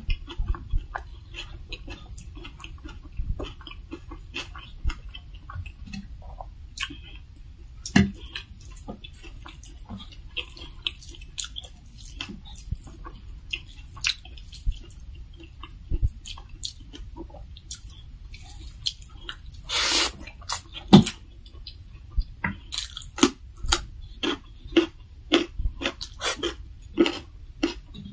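Close-miked chewing and wet mouth smacks of someone eating rice and fried pork by hand, with many short clicks and fingers working food on a steel plate. One louder, longer burst of noise comes about two-thirds of the way through.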